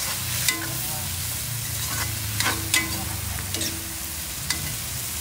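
Shiitake mushrooms and banana blossoms sizzling as they are sautéed with oyster sauce in a pan. A cooking utensil stirs them and clicks against the pan five or six times.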